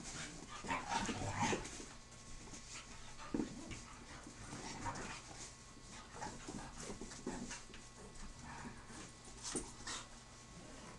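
Two dogs play-fighting on a carpeted floor: irregular bursts of scuffling and small dog noises, loudest about a second in and again near the end.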